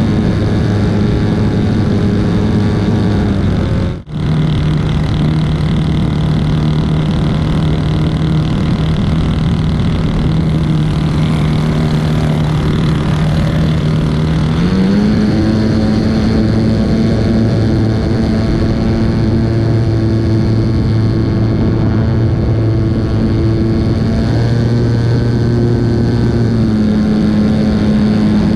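Senior Telemaster RC model airplane's engine and propeller running steadily in flight. The pitch rises a little about fifteen seconds in, with a brief drop-out about four seconds in.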